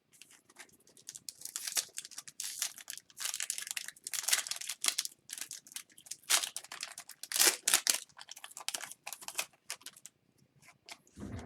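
Upper Deck hockey card packs being opened by hand: wrappers crinkling and tearing, and cards being handled, in irregular scratchy bursts that stop about a second before the end.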